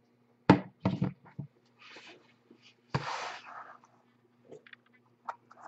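Hands handling a cardboard trading-card hobby box and cards on a wooden table: a few sharp knocks and taps early, then rustling and a scraping slide as the box is moved.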